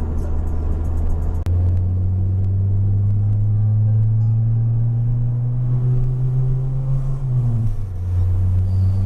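Acura Integra's four-cylinder engine droning while the car is driven, with a sharp break about a second and a half in. The drone then climbs slowly in pitch, dips and settles at a new pitch near the end, as at a gear change.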